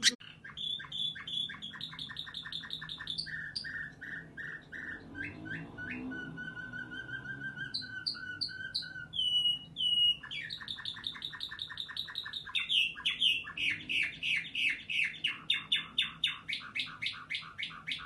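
Nightingale-song canary singing a continuous song of fast trills and quick repeated notes, with one long held lower whistle in the middle. Loud rapid trills fill the second half.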